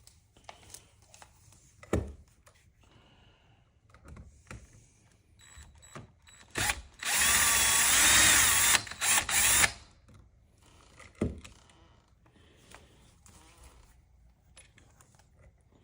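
Power drill running for about three seconds, its motor pitch wavering, while backing out a screw in a door lock's mounting hardware. A few short knocks come before and after it.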